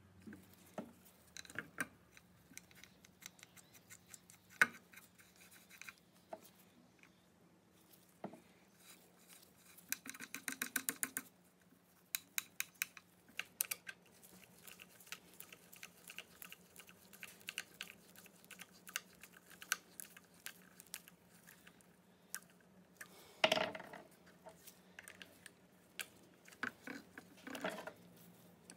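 Small metal parts of an Alvey fishing reel being handled: scattered light clicks and taps, with a quick run of clicks about ten seconds in and a louder clatter past the halfway point. A faint steady hum runs underneath.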